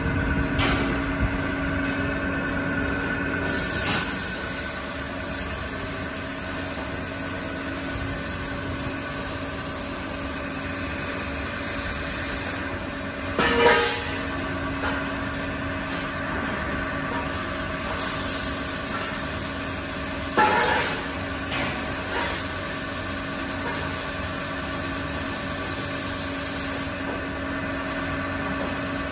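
Powder-coating spray gun hissing as it sprays, in two long bursts of several seconds, over a steady hum of booth machinery. Two short knocks stand out, about halfway through and again some seven seconds later.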